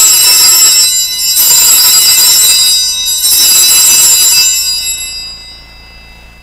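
Altar bells rung at the elevation of the host during the consecration: three long shaken peals of bright, high ringing, the last dying away about five seconds in.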